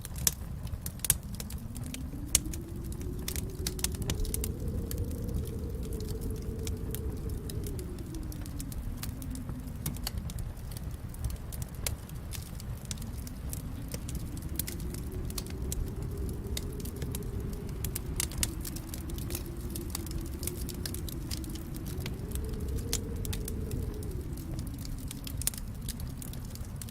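Wood fire burning in a fireplace: a steady low rumble of flames that slowly swells and fades, with frequent sharp crackles and pops, a few louder pops in the first couple of seconds.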